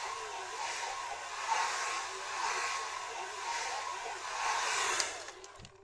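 Hand-held hair dryer blowing, a steady rush of air with a thin whine from its fan, swelling and fading about once a second. About five seconds in it cuts off with a click and dies away within half a second.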